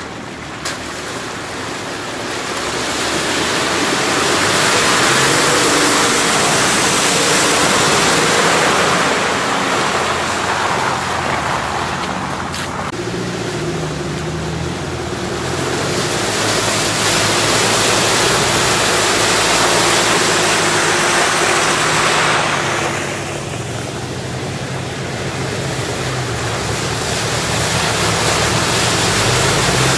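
Off-road 4x4s, a Toyota FJ Cruiser among them, driving through a flooded mud track: engines pulling under load while the tyres splash and slosh through mud and puddles. The noise swells and eases in waves as each vehicle passes, with the engine sound strongest in the second half.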